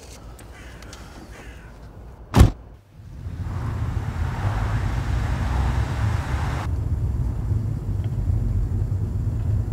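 A car boot lid slammed shut with one loud thud about two and a half seconds in. Then a car driving: a steady low engine and road rumble, with a rushing road noise over it for a few seconds that stops abruptly.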